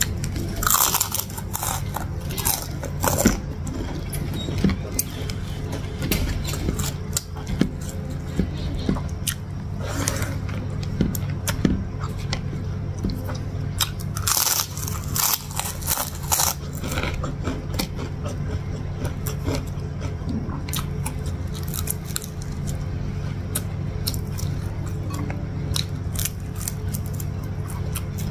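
Close-up crunching and chewing of fried salted fish and other food, with sharp irregular crunches loudest at a few points, over background music.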